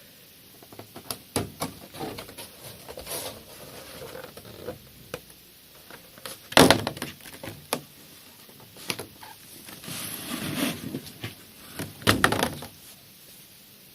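Cardboard and plastic card packaging being handled: scattered small taps, clicks and rustles, with two louder knocks, one about six and a half seconds in and one near the end.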